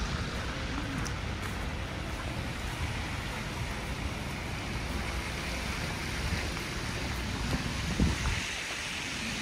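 Steady city street ambience in a snowstorm: traffic noise with wind, and a brief thump near the end.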